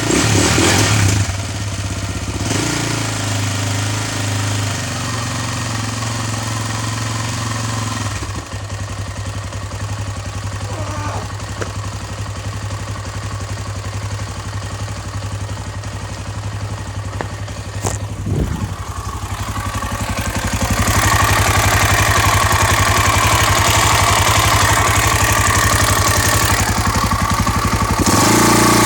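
KTM 525 EXC's single-cylinder four-stroke engine running with an even, rapid pulsing, getting louder about two-thirds of the way through.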